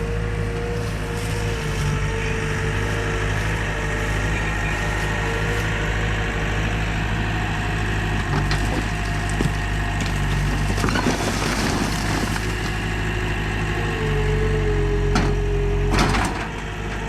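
Skid steer engine running steadily under a rising and falling hydraulic whine. In the middle comes a stretch of clattering and crackling, and near the end a single sharp bang.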